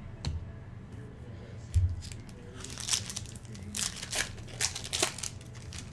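Foil trading-card pack wrapper being torn open and crinkled, a series of sharp crackles in the second half, after a low thump about two seconds in.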